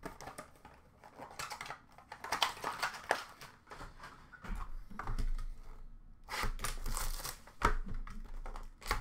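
Trading-card packaging being handled: plastic wrappers crinkling and rustling in irregular bursts, with light clicks and taps.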